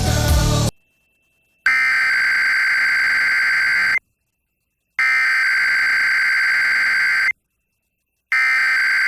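Emergency Alert System SAME header: three identical bursts of harsh, buzzing digital data tones, each a little over two seconds long with about a second of silence between them, the coded start of a required weekly test. Just before the first burst, the preceding broadcast audio cuts off.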